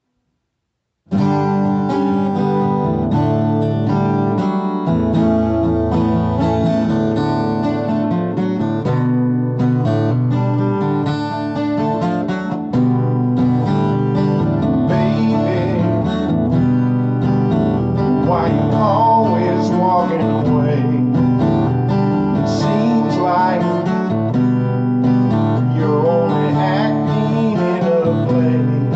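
Acoustic guitar music, starting about a second in and playing steadily.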